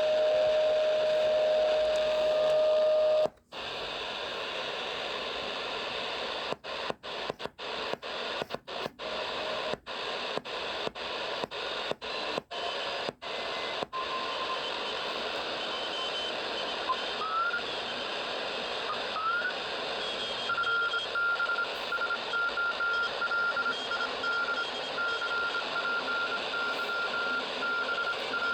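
Realistic DX-440 multiband radio's loudspeaker hissing with shortwave static as it is tuned with the BFO on. A steady heterodyne whistle cuts out a few seconds in, and the sound drops out briefly about a dozen times while the tuning steps. Later a Morse code (CW) signal comes through as a high beat tone keyed on and off.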